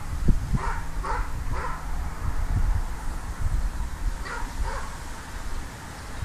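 A dog barking, three barks in the first two seconds and two more about four seconds in, with wind rumbling on the microphone.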